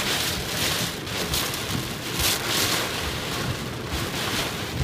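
Torrential wind-driven rain lashing a car's windshield and body, heard from inside the car. It is a dense, loud hiss that swells and eases in gusts.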